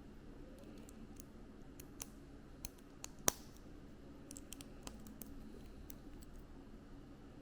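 Small plastic building bricks clicking as they are handled and pressed together: a scatter of separate sharp clicks, the sharpest a little over three seconds in.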